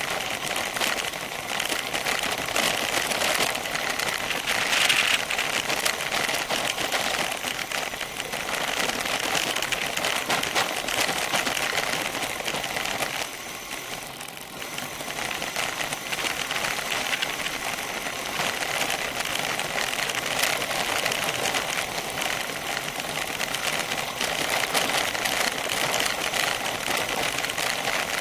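Bicycle rolling fast down a loose gravel road: a continuous dense rattle and crackle of tyres on gravel and the bike shaking, picked up through a camera mounted on the bike. It eases briefly about halfway through.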